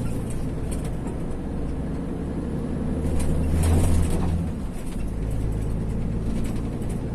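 Vehicle engine running steadily, heard from inside the cab, swelling louder for a second or so midway.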